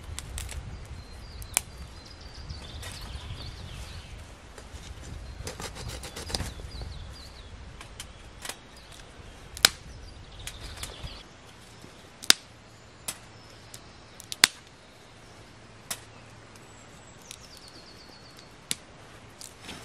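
Knife blade cutting into a wooden stick: sharp, separate clicks and snaps as the blade bites the wood, about seven of them spread out and irregular.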